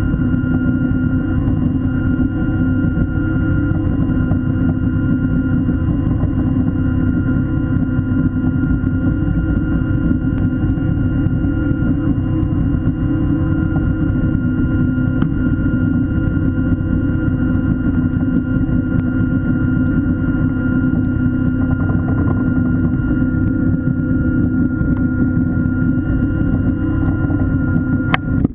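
Diver propulsion vehicle (underwater scooter) running underwater: a steady motor-and-propeller hum with a constant whine, cutting off suddenly at the very end.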